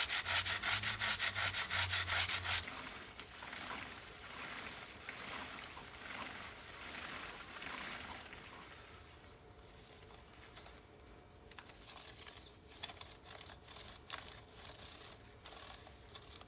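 A stiff chain-cleaning brush scrubbing a motorcycle drive chain wet with degreaser: about two and a half seconds of quick back-and-forth strokes, then quieter, uneven rubbing with a few light clicks.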